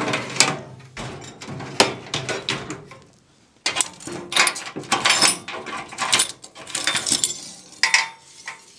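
Small loose steel parts (short rods, flat bar stock and thin plates) clinking and rattling as they are lifted out of a toolbox drawer and set down. The clatter pauses for about a second in the middle, then comes back busier.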